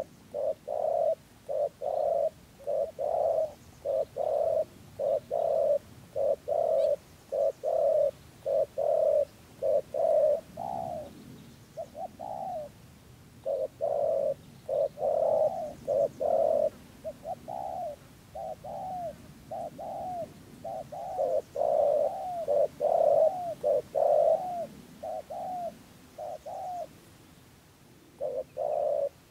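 Spotted dove giving its 'gù' coo: a rapid run of short, loud coos, about two a second, later with some notes sliding down in pitch, then a brief pause near the end before the cooing resumes.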